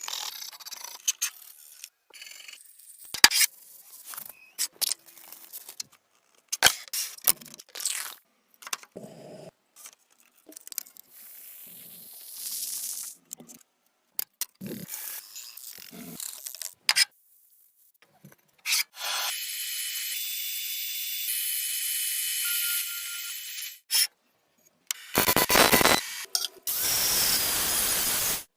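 Tools working a rusty metal cleaver in quick cuts: scraping and rubbing with sharp taps and clicks, then a steady high whir with a few held tones for about five seconds, and two loud rushing bursts near the end.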